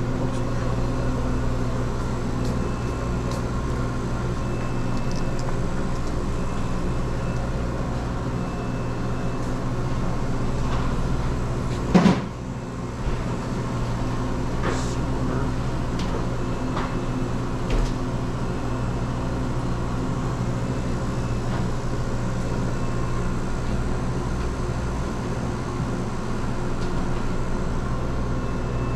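Steady electrical hum of convenience-store machines: the frozen-drink (Slurpee) machines, drink dispensers and coolers running. A single sharp knock about twelve seconds in, with a couple of fainter clicks a few seconds later.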